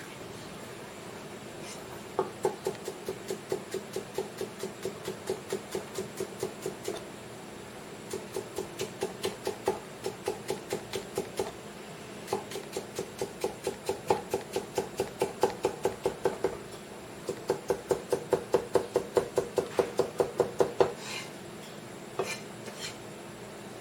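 Kitchen knife chopping daikon radish on a cutting board in fast, even strokes, about six a second. Four runs of several seconds each, with brief pauses between them.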